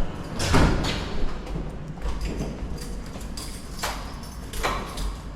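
Footsteps climbing stairs: a few separate heavy steps and thuds.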